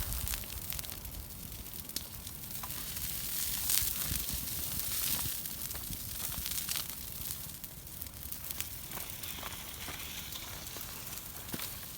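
Large bonfire of fallen tree branches crackling and hissing, with scattered sharp pops.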